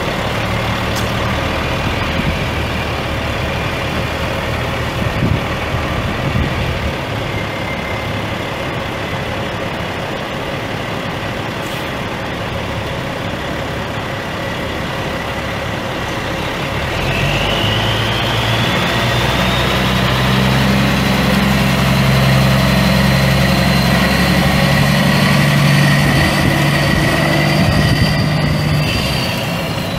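Caterpillar C12 straight-six diesel in a Peterbilt 377 semi truck idling, then revved up about halfway through and held at higher speed while a high whine rises with it, dropping back near the end.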